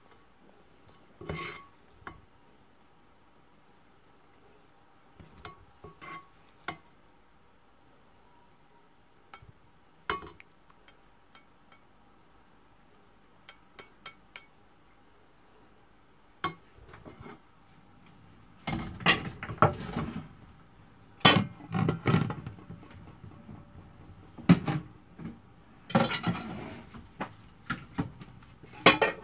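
Serving spoon knocking and scraping against a stainless steel pan and a ceramic plate as noodles are dished up. Scattered single clinks at first, then a busier run of scrapes and knocks over the last ten seconds.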